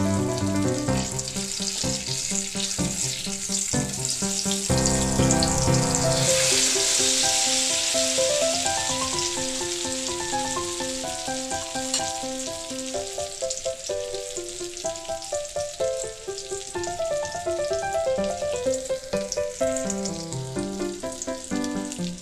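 Eggplant omelette sizzling as it fries in oil in an aluminium wok. The sizzle grows stronger about six seconds in, with background music playing throughout.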